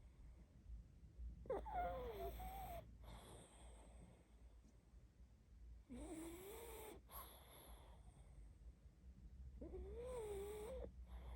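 A sleeping pug snoring, three long snores about four seconds apart, each with a wavering pitch.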